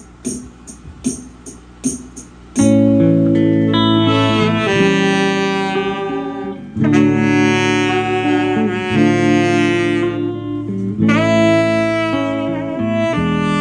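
A run of sharp clicks, about three a second, then a skinhead reggae song starts about two and a half seconds in: held horn-like notes over guitar and a steady bass line.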